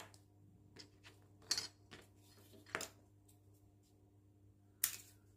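A few short, sharp clicks and taps of rolled-newspaper sticks and a small plastic scale being handled and set down while lengths are marked, the loudest near the end, over a faint steady hum.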